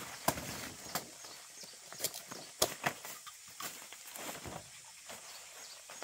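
A machete chopping through green leafy plant stalks, a run of sharp snaps and knocks over the first few seconds, then softer rustling of leaves and stems as they are handled.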